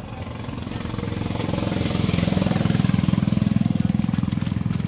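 A small engine running close by with a rapid, even pulsing beat. It grows louder over the first two seconds and then holds steady.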